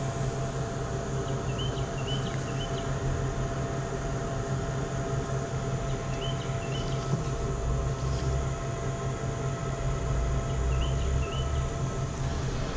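Steady machine hum with several held tones and a pulsing low rumble underneath. A small bird chirps briefly three times over it.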